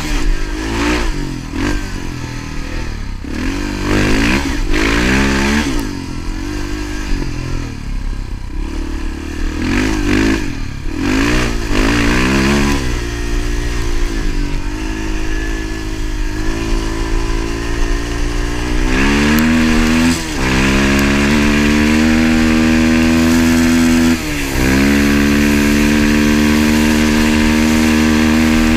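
Motorcycle engine revving up and down several times, then accelerating through the gears with two upshifts before settling into a steady run.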